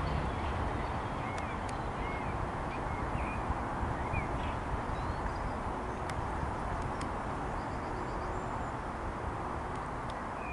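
Open-air ambience: small birds chirping over a steady rushing noise, with a few faint high clicks.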